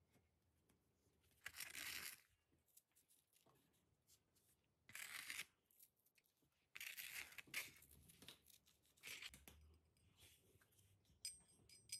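Four short, scratchy scraping rasps of sandpaper and a plastic scraper rubbing across a ceramic floor tile, working grit into a chip.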